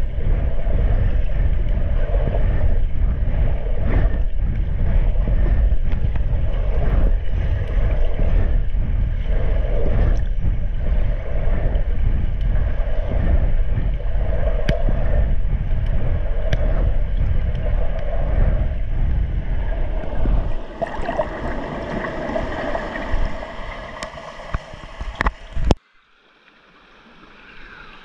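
Underwater noise of a camera moving through swimming-pool water with a swimmer: steady low churning water noise with a few sharp clicks. About two-thirds through it thins out. Near the end it cuts off suddenly as the camera leaves the water, and faint pool-hall air noise slowly rises.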